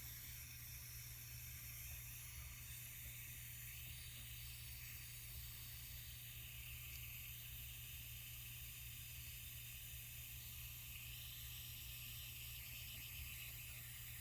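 Gas torch flame hissing steadily at high heat as it melts 14k gold scrap in a crucible, over a steady low hum.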